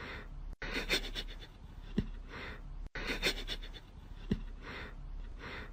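Soft breathy sniffs as a cat sniffs at a sock-covered foot, with a brief faint low sound. The same short stretch repeats about every two and a half seconds.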